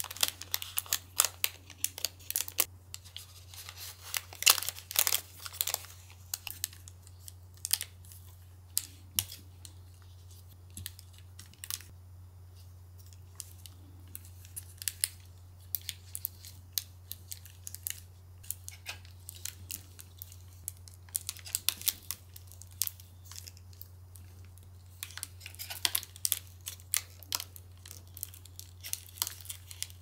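Thin clear plastic bag crinkling and crackling in irregular clusters as it is folded and twisted closed around a small ball, sparser in the middle, over a steady low hum.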